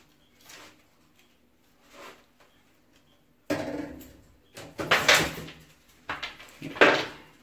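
Objects being handled on a tabletop: after faint small taps, a sudden run of loud scrapes and knocks starts about halfway through, with a few more near the end.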